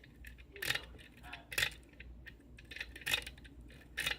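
Lock pick and tension wrench clicking against the pins inside a pin-tumbler challenge lock: about four sharp metallic clicks spaced a second or so apart, with fainter ticks between them.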